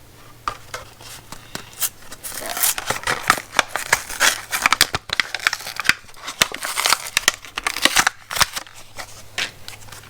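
Plastic packaging crinkling and tearing with quick clicks of handling as a fuse holder is taken out of its package. It starts about two seconds in and goes on in irregular bursts until near the end.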